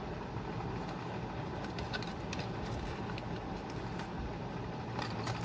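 Scattered small clicks and taps of hands handling a plastic folding drone, over a steady background hum.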